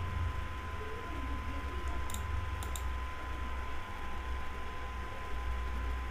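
Three quick computer mouse clicks about two seconds in, over a steady low hum with a faint steady tone.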